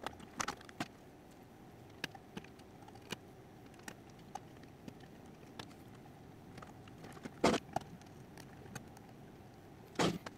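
Scattered small clicks and taps of hands wiring printer electronics: cables being run and tucked into channels, screw terminals being tightened. Two louder rustling knocks come about seven and a half seconds in and just before the end.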